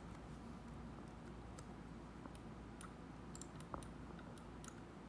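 Faint computer mouse clicks, about ten at irregular spacing, over a low steady hum; one sharper click comes about three-quarters of the way through.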